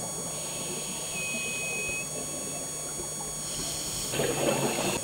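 Steady underwater hiss and low rumble from a camera filming at depth, with a rush of a scuba diver's exhaust bubbles starting about three and a half seconds in and lasting about a second.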